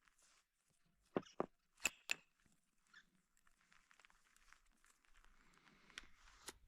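Near silence: a few faint sharp clicks or taps, four close together in the first couple of seconds and two more near the end, over a faint hiss.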